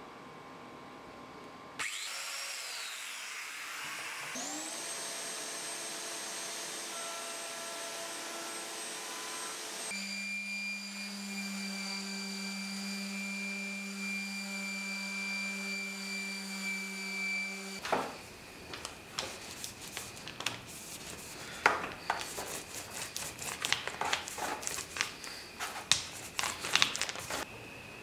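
An electric random orbit sander starts, spins up and runs on a clamped wooden glue-up. About ten seconds in, it gives way to a different steady machine sound with a low drone and a high whine. In the last ten seconds there is an irregular run of sharp wooden knocks and clicks as pieces of wood are handled.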